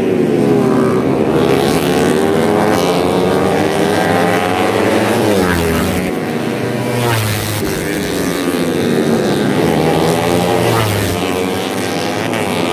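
Several racing underbone motorcycles with tuned four-stroke engines of up to 150 cc, running hard past a corner. Their engine notes rise and fall over and over as the bikes accelerate, shift and pass, several at once.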